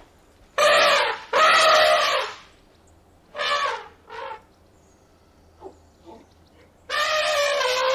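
An animal calling repeatedly in loud, pitched calls: two calls of about a second each near the start, two shorter ones in the middle, and a longer, steady-pitched call beginning near the end.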